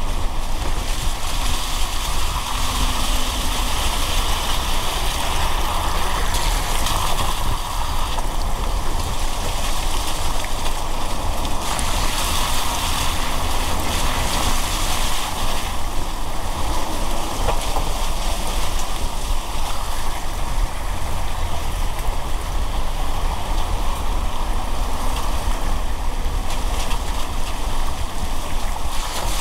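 Car driving in the rain: a steady hiss of tyres on a wet road and falling rain over a low road rumble, the hiss swelling for a few seconds about twelve seconds in.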